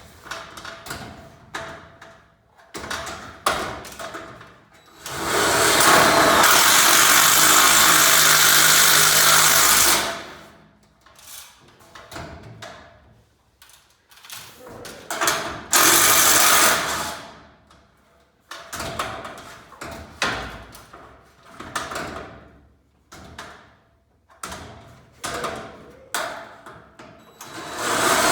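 Cordless drill driving self-tapping screws into a steel garage door: one long run of about five seconds, then a shorter run of a second or two about ten seconds later, with clicks and knocks of tool and hardware handling between.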